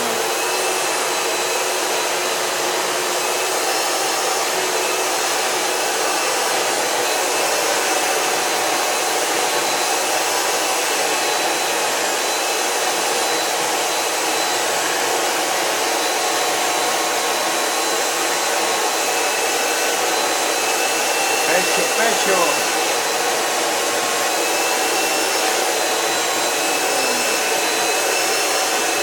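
Vacuum cleaner running steadily with a constant whine, being run over a bulldog's shedding coat. A little past two-thirds of the way in, the sound briefly wavers and gets slightly louder.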